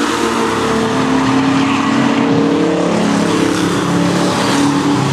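Engines of several racing sport trucks running hard together in a tight pack, several engine notes heard at once, some dropping in pitch about halfway through.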